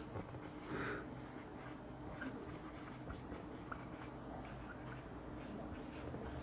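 Marker pen writing on a whiteboard: faint, short scratchy strokes as letters are drawn.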